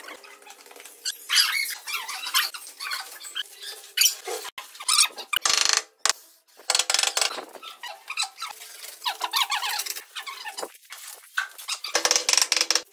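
Mallet taps on a granite countertop slab as it is bedded down, mixed with repeated squeaks.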